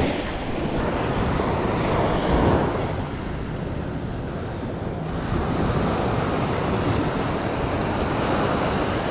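Small surf waves washing up on a sand beach, with wind noise on the microphone.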